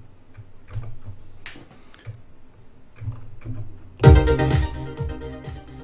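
Roland JD-Xi synthesizer playing: soft low notes and a few clicks, then about four seconds in a loud pattern of drums and synth parts starts suddenly.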